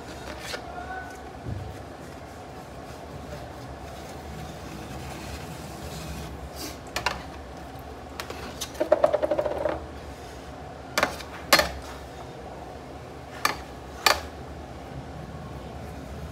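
Cake-icing tools clinking and knocking against the metal turntable and cake board while whipped-cream icing is smoothed: a handful of sharp knocks in the second half and a brief rattling buzz about nine seconds in.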